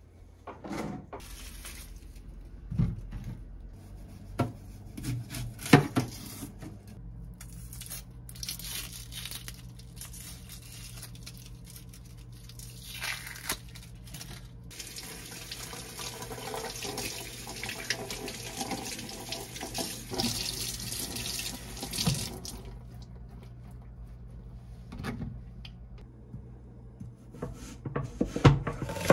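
Kitchen faucet running into a stainless-steel sink for about fifteen seconds while an onion is rinsed under it, with a few sharp knocks and clatters before. Near the end, a knife strikes a wooden cutting board several times, cutting the onion.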